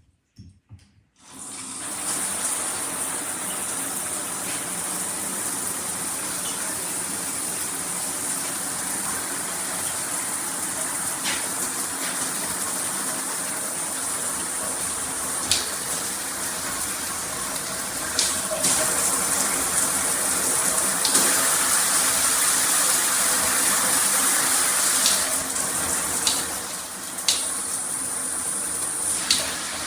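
Handheld shower head spraying water, starting about a second and a half in as a steady rush that grows somewhat louder in the latter half, with a few light clicks over it.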